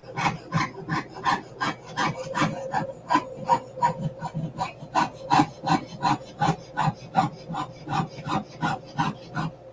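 Jeweler's saw cutting through sheet metal on a wooden bench pin, in quick even strokes of about three to four a second.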